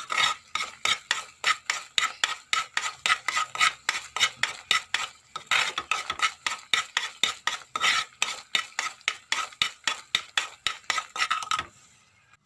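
A spoon stirring thick tulsi and rock-sugar syrup in a kadai, scraping and knocking against the pan about four times a second. The syrup has cooked down to a thick, sticky stage. The stirring stops just before the end.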